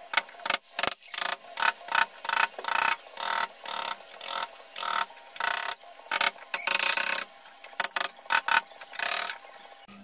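Hammer striking a wood chisel, irregular blows about two to three a second, chopping a shallow recess about 4 mm deep into the edge of a wooden door for a mortice lock's front plate.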